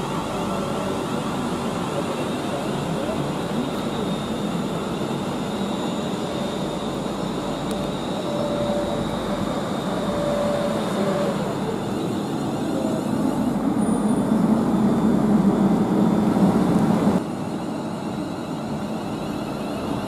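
Class 350 electric multiple unit running into the station along the platform, a steady rumble of wheels on rail that builds toward its loudest and then drops off sharply about three-quarters of the way through.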